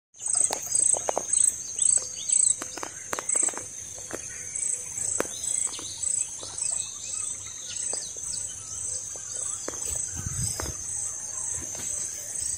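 An insect, cricket-like, chirping in regular high pulses about twice a second over a steady high trill, with scattered bird chirps beneath.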